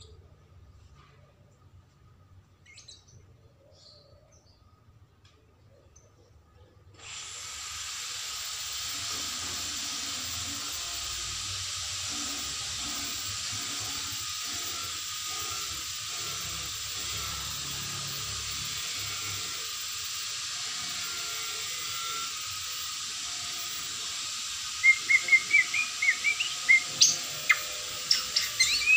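A steady hiss switches on abruptly about seven seconds in and runs on. Near the end a white-rumped shama (murai batu) breaks into loud, sharp, rapid chirping song over it.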